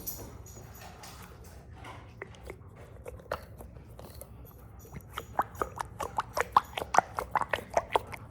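Glitter slime being squeezed and worked by hand, its trapped air popping and crackling in sticky clicks. Sparse at first, then a quick run of loud pops over the last three seconds.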